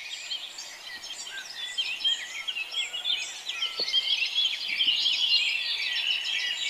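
Many small birds chirping and twittering together in a dense morning chorus of short, quick notes, growing somewhat louder after the first couple of seconds.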